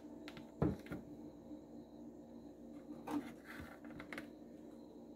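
A lidded clear plastic container handled on a kitchen countertop: a sharp knock under a second in, then light scraping and rubbing of the plastic about three seconds in. A faint steady hum runs underneath.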